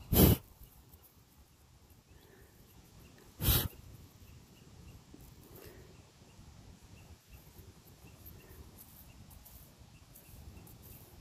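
Two short, loud scuffs, one right at the start and one about three and a half seconds in, over a faint woodland background. From about the middle on, a faint high chirp repeats at a steady pace, typical of an insect calling.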